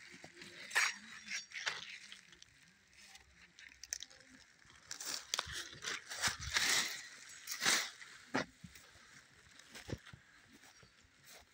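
Footsteps crunching and rustling through dry grass, straw and pumpkin vines, in uneven steps.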